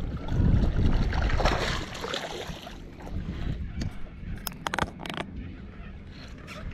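A hooked bass splashing at the surface as it is reeled up to the boat. A few sharp clicks and knocks follow a little past the middle as the fish comes aboard.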